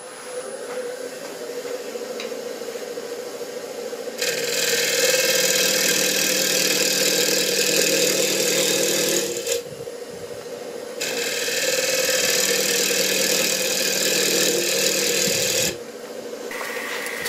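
Wood lathe running with a steady hum while a turning tool cuts the inside of a large Fijian mahogany bowl. There are two loud scraping cutting passes of about five seconds each, one starting about four seconds in and the other about eleven seconds in, each stopping suddenly when the tool is lifted.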